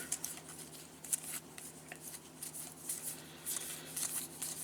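Baseball trading cards being handled and slid against one another: light papery rustles and soft clicks coming in short irregular bursts.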